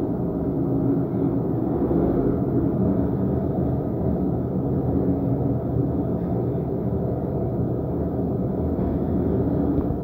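Passenger lift travelling in its shaft: a steady low mechanical rumble with a faint hum from the hoist drive.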